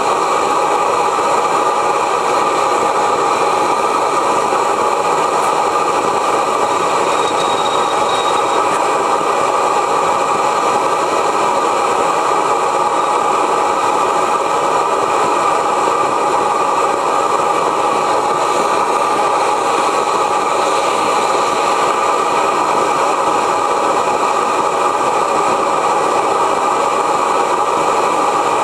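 Steady hiss of the propane burner heating the hot tube of a 1905 Reid 15-horsepower two-cycle oilfield engine, with no firing beat from the engine itself.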